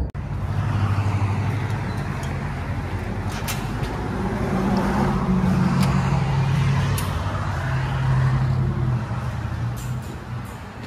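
A road vehicle's engine running nearby, a steady low hum that shifts in pitch over general traffic noise, with a few light clicks.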